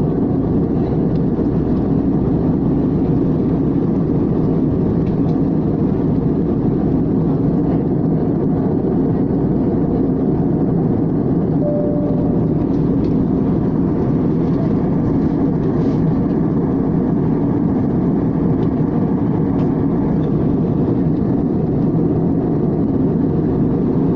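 Steady airliner cabin noise, the low even rush of jet engines and airflow heard from a window seat during the descent for landing. A short faint tone sounds once near the middle.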